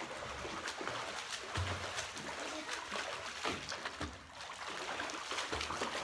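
Irregular water splashing and sloshing from two people swimming hard across a pool.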